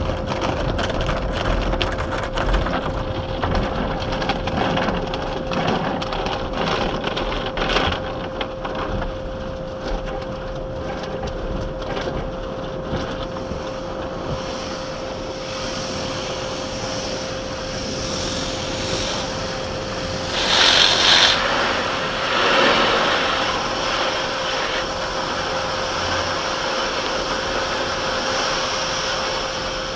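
Automatic car wash at work: a crackling, scraping noise over a steady hum, turning about halfway through into a steadier rushing hiss, with a louder blast about twenty seconds in.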